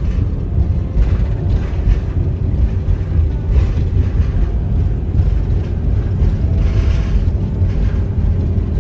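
Heavy wind buffeting the microphone: a loud, steady low rumble and rush.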